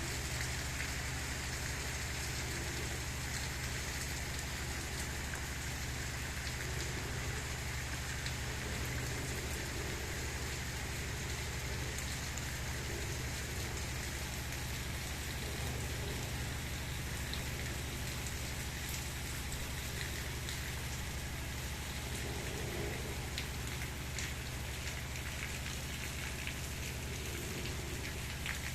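Steady gentle rain falling, an even hiss with scattered faint drop ticks and a steady low rumble underneath.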